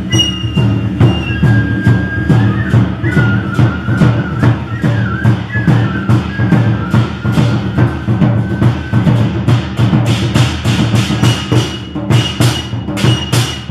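Taiko drums played in a steady, driving rhythm of about three to four strokes a second, the strokes growing denser and brighter over the last few seconds. A higher wavering melody line runs over the drumming through the first half.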